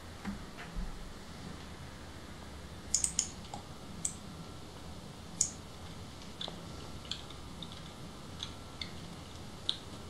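Scattered clicks and key taps on a computer, about a dozen at uneven intervals, over a low steady room hum.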